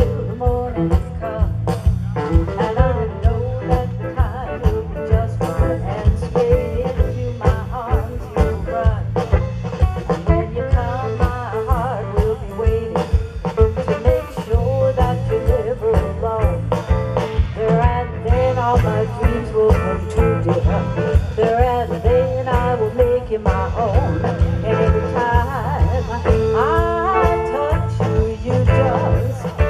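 Blues-style band music with a steady drum beat, picked up by the Canon PowerShot SX50 HS's built-in stereo microphone.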